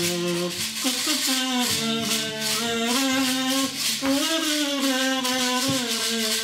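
Sung melody in long held, gliding notes, with a rattle shaken in rhythm and an acoustic guitar.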